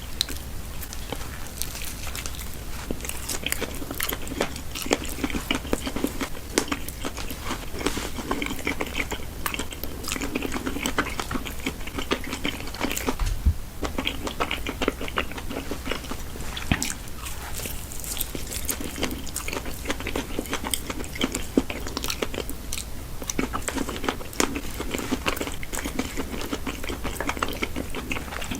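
Close-miked chewing and biting of food: a steady run of wet mouth clicks and smacks with crunches, without pause.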